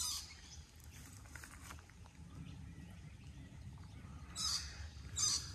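Wild birds calling in the bush: a short call right at the start, then two more about four and a half and five seconds in, over a faint low background noise.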